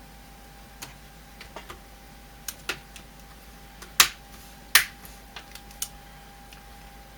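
Plastic snap clips of a laptop screen bezel clicking into place as it is pressed onto the lid: scattered sharp clicks at uneven intervals, the two loudest about four and nearly five seconds in.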